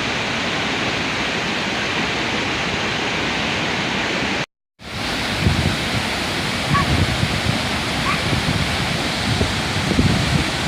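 Steady rush of a waterfall, in two shots with a short cut to silence a little under halfway. In the second shot the rush carries more low rumble, with a few faint short chirps above it.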